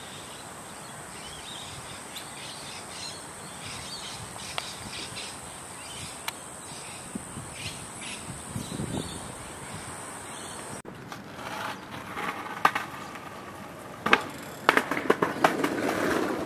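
Steady outdoor hiss with faint bird chirps. After about eleven seconds it gives way to a few sharp clacks and a rolling clatter of a skateboard on pavement, loudest near the end.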